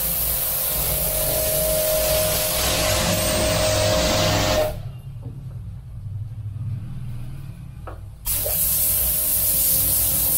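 Cheston 1800 W electric pressure washer jetting water onto bathroom floor tiles: a steady hiss with a faint whine. About four and a half seconds in the spray cuts off suddenly as the trigger is released, and it starts again about three and a half seconds later.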